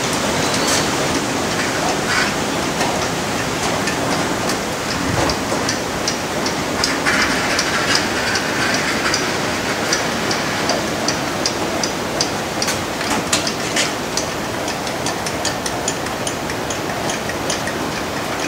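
Metal lathe carriage wound along the bed by its handwheel, giving many light, irregular metallic clicks over a steady hiss. The clicks come thicker in the second half.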